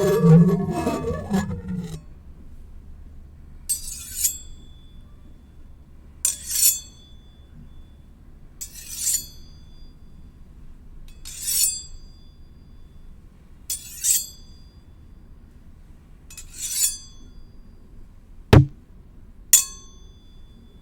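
Steel blades rubbing and ringing: a wavering, pitch-bending ring dies away about two seconds in, then one blade is slid along another about every two and a half seconds, each stroke a short high scrape ending in a brief ring. A single sharp clink comes near the end.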